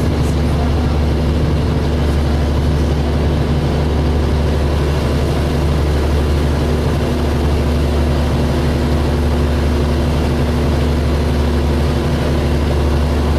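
DAF SB220 single-deck bus engine running at a steady pitch, heard from inside the bus as a constant low drone with road noise.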